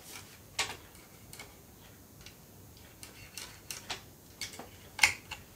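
A few scattered light clicks and taps as a bassoon is handled on its clamp-mounted support rod, from its metal keys and fittings.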